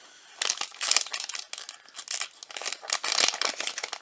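Plastic packaging of a blind-box toy crinkling and rustling as it is opened by hand, in quick irregular crackles.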